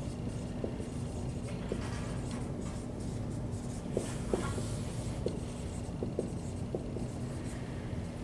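Dry-erase marker writing on a whiteboard: short, irregular squeaks and ticks as letters are stroked out, over a steady low room hum.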